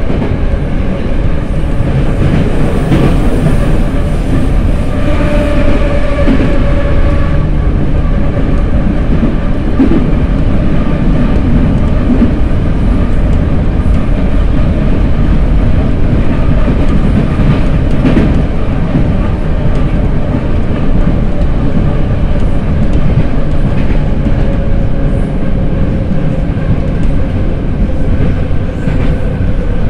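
81-717 metro car running at speed through a tunnel, heard from inside the passenger car: a loud, steady rumble of wheels on rail, with now and then a clack from the track.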